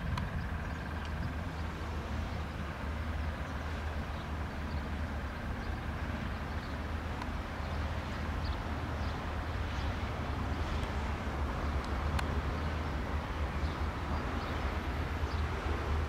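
Distant Piper PA-28-140 Cherokee's four-cylinder Lycoming engine and propeller running steadily at low taxi power, a constant low drone.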